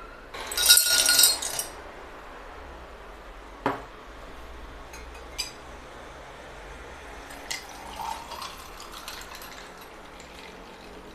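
Ice cubes dropped clattering into a glass about half a second in, then a few single clinks. In the second half, basil sherbet is poured from a glass jug over the ice, liquid splashing with light clinks.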